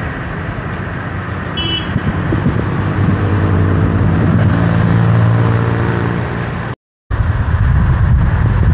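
Road traffic with a vehicle engine running close by, its low drone growing louder through the middle. The sound cuts out for a moment about seven seconds in, then the traffic noise resumes.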